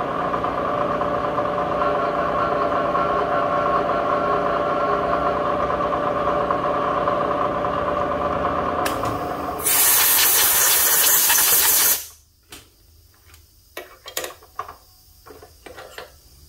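Milling machine spindle running steadily with an 8 mm slip-fit reamer being sent through a hole in a stainless part. About ten seconds in, a loud hiss takes over for two seconds. Then everything stops abruptly, followed by light metallic clicks and taps.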